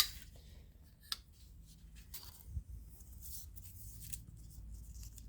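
Folding knife being handled: a sharp click right at the start and a smaller one about a second in, then faint scattered handling noises.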